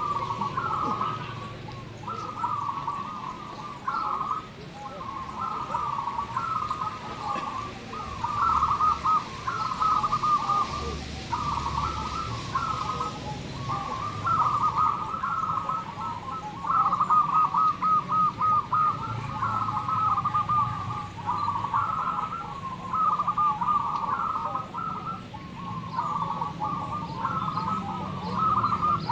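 Many zebra doves cooing at once, their rhythmic trilled coos overlapping into a continuous chorus at about the same pitch.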